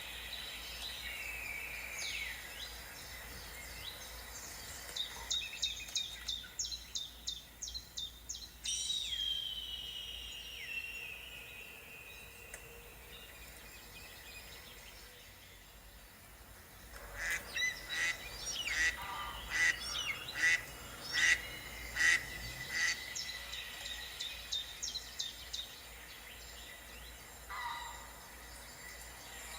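Birds calling outdoors: two bouts of rapid, evenly repeated high calls, one about five seconds in and a longer one from about seventeen seconds, with a falling, gliding call between them.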